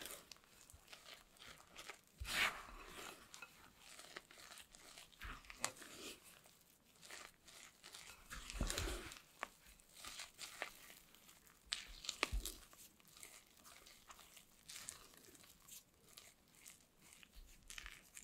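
Silicone spatula mixing cocoa and flour into wet ingredients in a glass bowl to make a thick chocolate batter: soft, irregular scraping and crunching strokes, with a few louder knocks.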